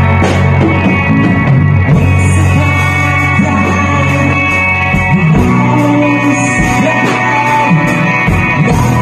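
Rock band playing loud in a small room: electric guitar over drums, with a voice singing.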